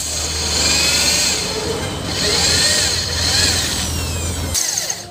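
Electric drill boring through a truck brake lining, its pitch rising and falling as the bit cuts. It stops about four and a half seconds in.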